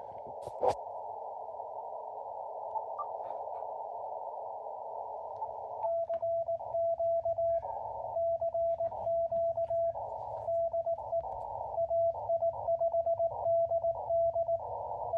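Amateur radio transceiver in CW mode. First comes the hiss of band noise through a narrow receive filter. About six seconds in, Morse code starts: steady sidetone beeps keyed in dots and dashes, with the band hiss returning in the gaps between characters.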